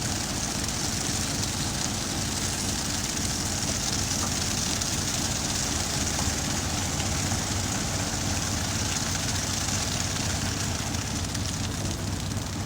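Heavy diesel machinery at a concrete batching plant running steadily: a low engine drone with a continuous hiss over it.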